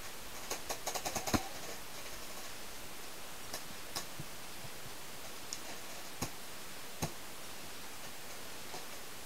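Paintball markers firing: a rapid string of about eight shots in the first second and a half, then single sharp shots spaced out over the next few seconds.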